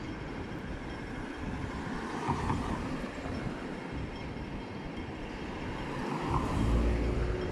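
Street traffic: a steady rumble of passing vehicles. Near the end, a car engine grows louder as a taxi passes close by.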